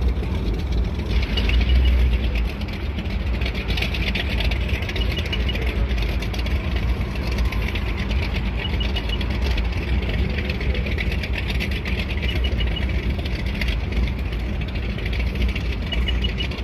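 Steady low engine rumble with no breaks or sudden changes.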